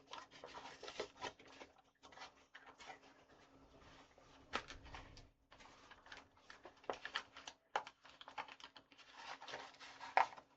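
Stiff plastic blister packaging of a Pokémon card pack being worked open by hand: irregular scratching and clicking of the plastic, which is hard to open.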